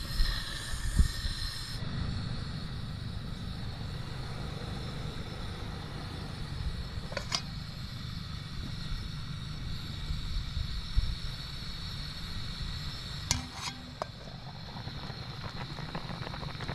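A pot of fish broth cooking over the heat: a steady low rumble with a faint sizzle, and a few sharp clicks and knocks, some of them close together near the end.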